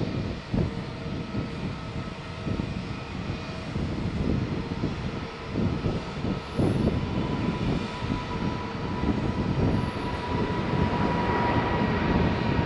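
Boeing 777 climbing out at takeoff thrust, its two large turbofan engines giving a rumbling roar that grows louder as it passes close overhead. About halfway through, a steady high fan whine comes in over the roar and gets stronger toward the end.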